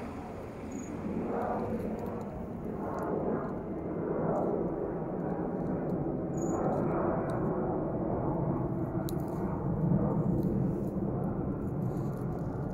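Wind buffeting the microphone outdoors: a low rushing rumble that swells and falls in gusts every second or two.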